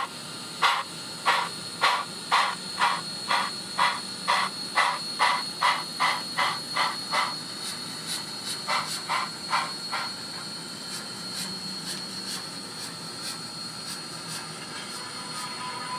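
Model PRR N1s 2-10-2 steam locomotive's TCS WOW sound decoder playing steam exhaust chuffs. The chuffs quicken from under two to about two and a half a second, weaken after about seven seconds and die away by about ten, leaving a steady hiss. A thin high steady tone runs underneath throughout.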